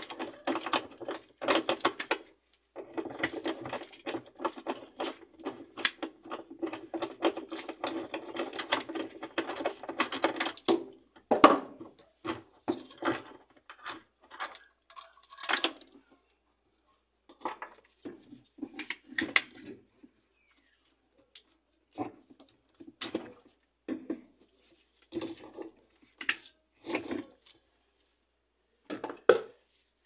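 Metal parts of a washing machine's drive motor and its mount clattering and knocking under the hands as the motor is worked loose and taken out. A dense rattling clatter for the first ten seconds or so, then scattered single clinks and knocks.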